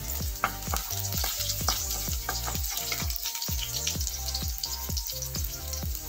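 Chopped onion and garlic sizzling in hot oil in a steel wok, moved about with a wooden spatula. Background music with a steady beat plays underneath.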